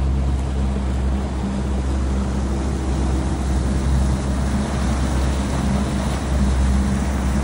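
Suzuki outboard motor running steadily as the boat travels at speed, a low engine hum under the rush of water churned up in its wake.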